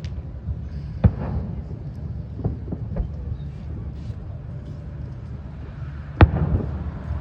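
Aerial fireworks bursting: a sharp bang about a second in, a few fainter pops around two and a half to three seconds, and the loudest bang about six seconds in, over a steady low rumble.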